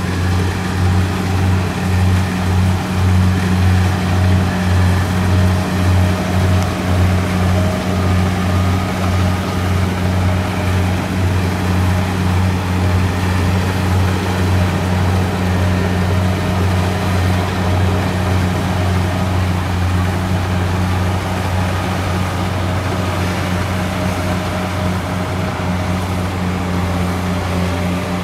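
Kubota DC70 combine harvester running steadily: a loud, even diesel drone with a slight throb over the first several seconds.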